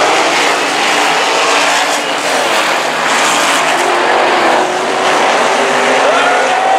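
A pack of winged RaceSaver sprint cars, running 305 cubic-inch V8s, racing at speed around a dirt oval. Their engines make a loud, continuous roar whose pitch rises and falls as the cars pass.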